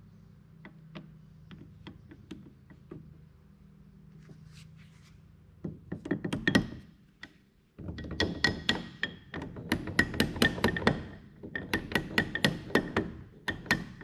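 Hammer blows on the steel parts of a baler knotter: a few light taps at first, then from about halfway a quick run of ringing metal strikes, several a second, broken by short pauses.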